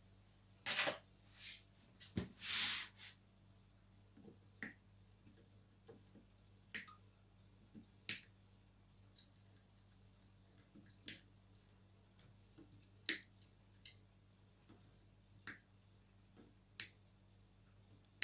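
Small side cutters snipping the thin balance wires on an 18650 lithium battery pack: about a dozen sharp single clicks, one every second or two, with a brief rustle of handling in the first few seconds.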